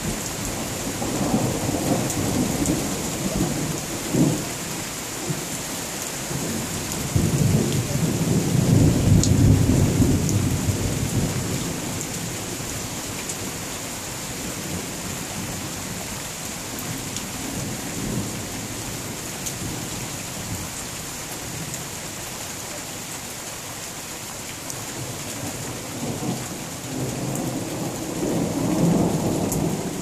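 Thunder rumbling over steady rain falling on a surface. Short rolls come early, a longer and louder rumble swells and fades about a third of the way in, and another rolls in near the end.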